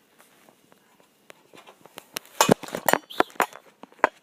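Spoon clinking and knocking against the cooking pot and bowl while serving out thick oatmeal: a quiet start, then a quick run of sharp clinks in the second half.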